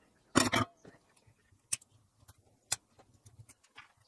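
Handling noise from soldering tools at a plywood baseboard: a quick cluster of knocks about half a second in, then a few single sharp clicks and faint ticks.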